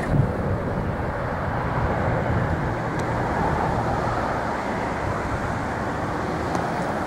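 Steady low rumble of vehicle noise, louder for a moment at the very start.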